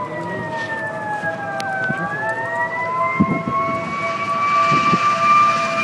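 Fire engine siren wailing: its pitch falls for about two seconds, then climbs back up and holds steady, growing louder as the engine approaches.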